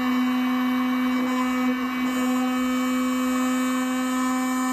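Electric heat gun running steadily, a constant hum with a rush of air, blowing hot air into the opening of a freshly rinsed steel fuel tank to dry it out.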